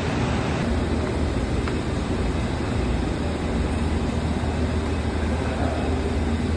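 Steady low machine hum with an even rushing noise from running brewhouse equipment.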